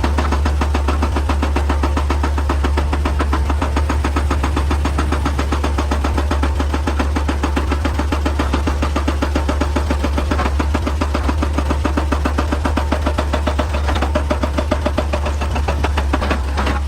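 Excavator's diesel engine running steadily, with a rapid even pulsing.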